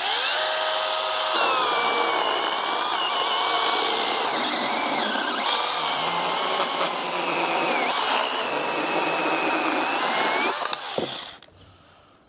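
Cordless 21 V mini electric chainsaw spinning up with a rising whine and cutting through a thick log. The pitch drops and wavers several times as the chain bites under load, then the saw winds down and stops about eleven seconds in.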